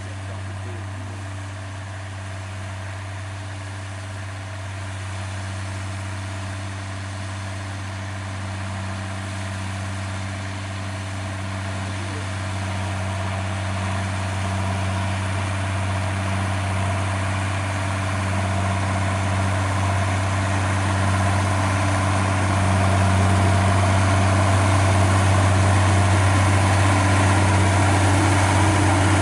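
Schlüter 1250 Special tractor's diesel engine running steadily under load while pulling a four-furrow plough through the soil, its note holding a constant pitch and growing steadily louder as the tractor comes closer.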